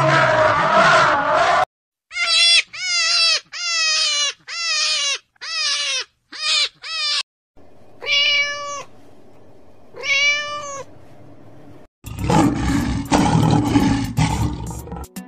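A series of animal calls: first a harsh call, then a quick run of about eight short cries that each fall in pitch, then two longer calls held on one pitch, and near the end a harsh, noisy call.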